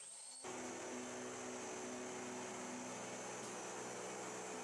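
Alternator test bench running steadily: a constant machine hum with a faint high whine, starting about half a second in.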